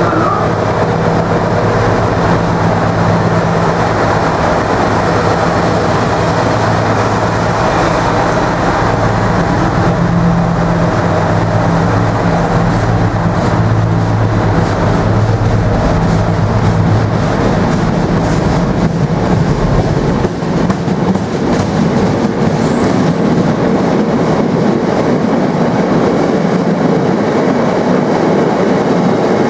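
Class 60 diesel-electric locomotive's eight-cylinder Mirrlees engine droning steadily as it passes close by. The drone fades a bit over halfway through, leaving a long rake of loaded hopper wagons rumbling and clattering past over the rail joints.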